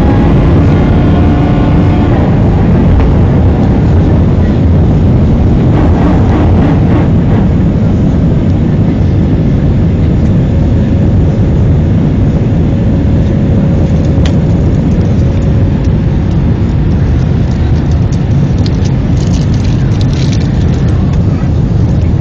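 Loud, steady rumble of an Airbus A320's jet engines and rushing air, heard from inside the passenger cabin during the climb after takeoff.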